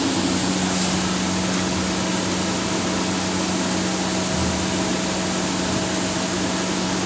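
CNC turning lathe running with a steady hum, set in motion for a thread-cutting cycle. A brief faint click comes about a second in.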